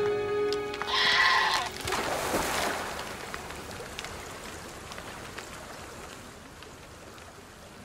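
A wild goat bleats once, briefly, about a second in. Then comes a loud surge of noise that settles into the steady rush of white-water river rapids.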